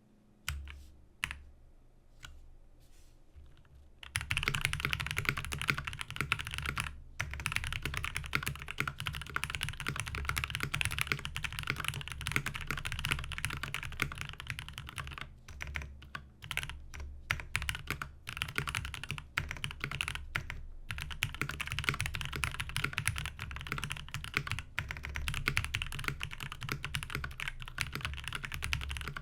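Typing test on a Space 65 Cybervoyager mechanical keyboard fitted with Akko ASA-profile double-shot keycaps. A few single key presses come first, then steady fast typing starts about four seconds in and runs on with only short pauses.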